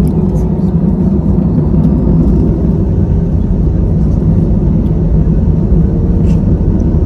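Steady, loud engine and airflow rumble of an airliner heard from inside the passenger cabin.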